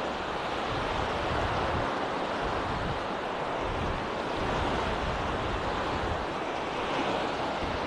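Small Mediterranean waves breaking and washing up on a sandy beach, a steady surf.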